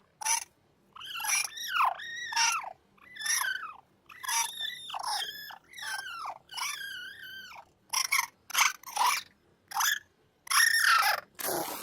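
Morph's hiccups, electronically pitch-shifted and processed: about fifteen short, high, squeaky sounds with brief silences between, many with a pitch that arches up and down.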